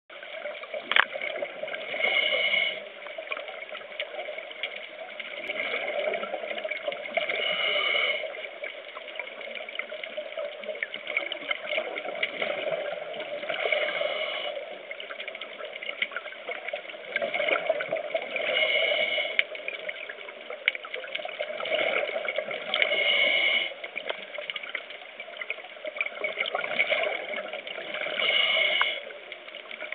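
Scuba diver's regulator breathing underwater: a gurgling rush of exhaled bubbles about every five seconds, six in all, over a steady water murmur scattered with faint crackling clicks.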